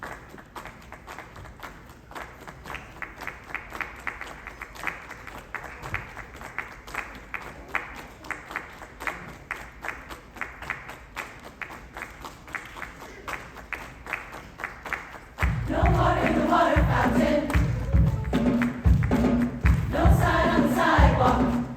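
A choir's rhythm of sharp percussive beats, about three to four a second, kept steady at moderate level. About fifteen seconds in, the choir comes in loudly singing together over heavy low thumps on the beat.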